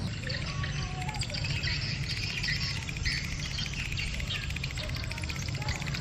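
Insects trilling and birds chirping, a fast, even ticking that carries on without a break, over a steady low rumble.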